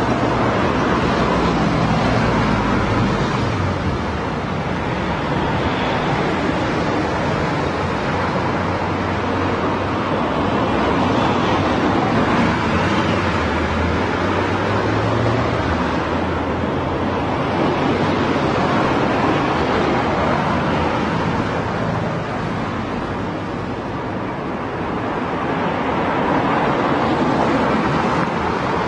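Continuous road traffic: a steady wash of passing cars that swells and eases off every few seconds, with a low engine hum underneath.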